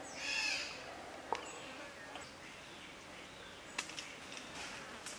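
Woodland ambience: a loud, harsh bird call in the first second, then faint chirps and a few sharp clicks over a quiet background.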